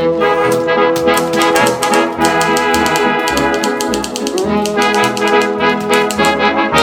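Brass-led music with trumpet and trombone, over a quick run of sharp clicks.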